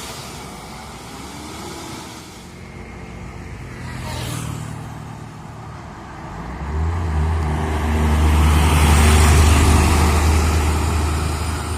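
Diesel bus engine rumbling as it approaches and passes close by. The deep rumble builds from a little past halfway and is loudest about three-quarters of the way through, after a brief whoosh of a lighter vehicle going by about four seconds in.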